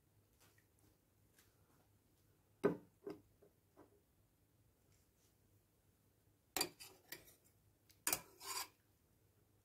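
A metal spoon knocking and scraping against a stainless steel pot and a china plate while stuffed peppers and their sauce are spooned out. A few short knocks about three seconds in, then louder scrapes and clinks twice near the end.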